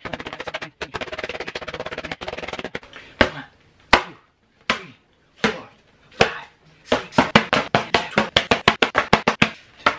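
An open hand slapping a sheet of paper over and over. First comes a fast rattle of slaps lasting about three seconds, then single sharp slaps about three-quarters of a second apart, which quicken to about three or four a second near the end.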